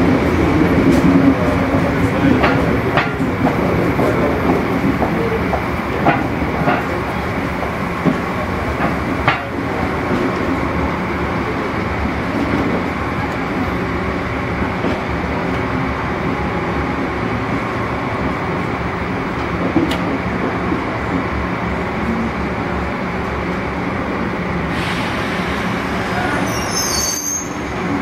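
Corail passenger train rolling slowly into the station, a steady rumble of coach wheels on the rails with scattered sharp clicks and knocks, most of them in the first ten seconds.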